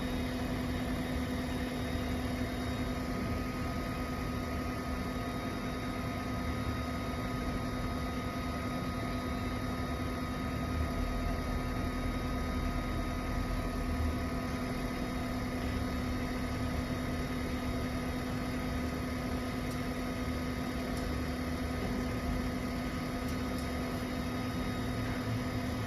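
The hot-air heater and blower of an LV-02 BGA rework station running steadily through its third heating step while reflowing a laptop CPU chip: an even hum with a constant whine, and a higher tone joining about three seconds in.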